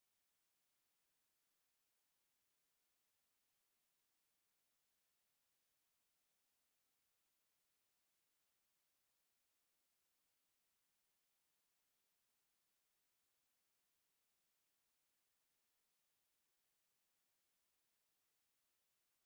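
Pure 5921 Hz sine-wave test tone, one steady high-pitched whistle-like tone held at a constant level.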